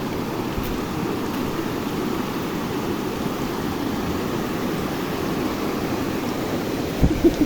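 Steady rush of a flowing river. A couple of short low thumps come near the end.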